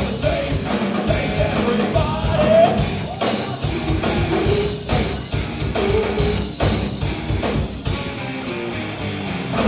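Live rock band playing: electric guitar, bass and drum kit, with a voice singing a melody over them.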